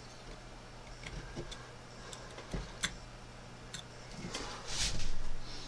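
Carving-knife tip cutting small details into wood: scattered light clicks and ticks as it pricks out the eye pupils, with one longer, louder scraping cut near the end. A steady low hum lies underneath.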